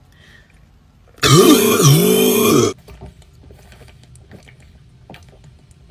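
A person's long, loud burp about a second in, lasting about a second and a half, its pitch dipping in the middle.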